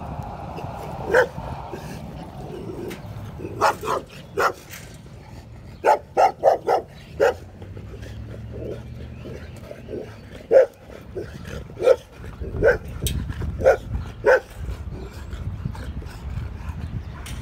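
A dog barking: about fourteen short, sharp barks in irregular bouts, including a quick run of five around six to seven seconds in.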